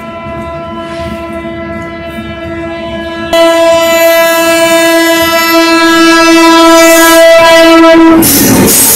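WAP-7 electric locomotive of an LHB-coached Rajdhani Express sounding one long, steady horn blast as it approaches, getting much louder about three seconds in. Near the end the horn stops and the rushing noise of the locomotive and coaches passing at speed takes over.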